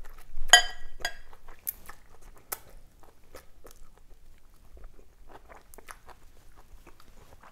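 Mouth sounds of eating a vegetable-noodle salad: a loud slurp as a noodle strand is sucked in about half a second in, then wet chewing with small crunches that grow quieter after about three seconds.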